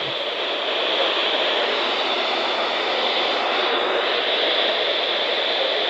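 Weather radio receiver giving out steady static hiss, tuned to a station too weak to be received.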